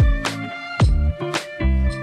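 Background music with a steady beat: a low drum hit about twice a second under sustained pitched tones.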